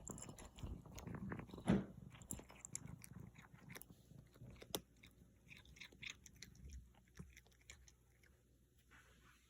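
A cat chewing and biting its food, a run of crisp crunches and clicks that are busiest in the first half, with one louder snap about two seconds in, then thin out and fade.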